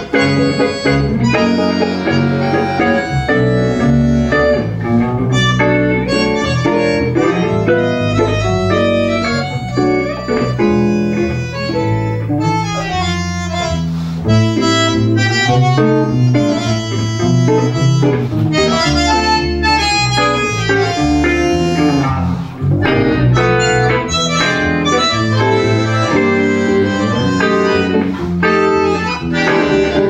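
Live tango music: a bandoneón carrying the melody over guitar and electric bass.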